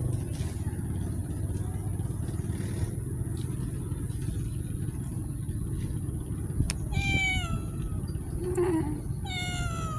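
A cat meowing twice in the second half, each meow falling in pitch, over a steady low rumble of traffic.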